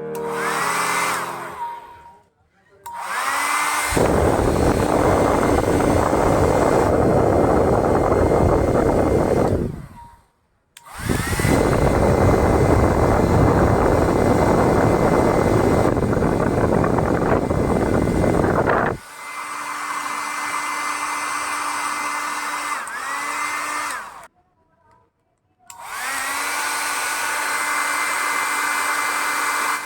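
Philips 1000-watt hair dryer switched on and off several times, its motor whining up in pitch as it starts. It runs as a loud rush of air for two long stretches, then at a quieter, steady level with a high whine, and cuts out sharply each time it is switched off.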